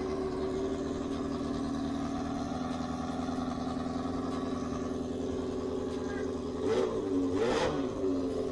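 Suzuki Bandit 600 inline-four engine in a Hyosung Comet 250 frame idling steadily, then revved in two quick throttle blips near the end.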